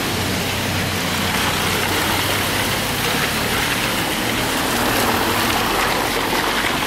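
Steady rain falling on a wet street, an even hiss with a low hum underneath.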